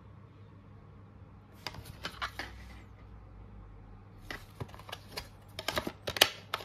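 A plastic DVD case and disc being handled: a run of light plastic clicks and rattles, loudest near the end as the disc is pressed onto the case's centre hub.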